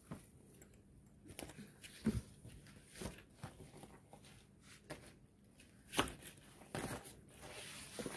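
A clear plastic wrapper being unpacked by gloved hands, crinkling and rustling at irregular moments, with a few sharp taps and knocks. The loudest come about two and six seconds in.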